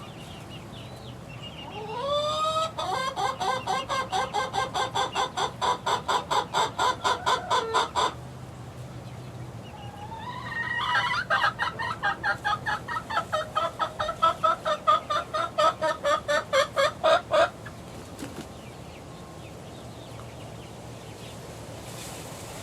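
A young chicken calling in two long runs of rapid, evenly spaced clucks, about five a second, each run opening with a rising note; the first lasts about six seconds, the second about seven, starting a couple of seconds after the first ends.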